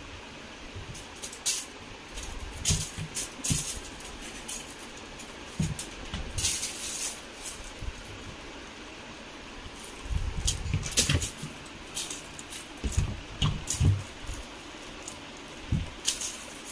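A kitten playing rough on a mattress: soft thuds of paws and body landing, with scattered bursts of sharp crinkling from a plastic wrapper it is batting.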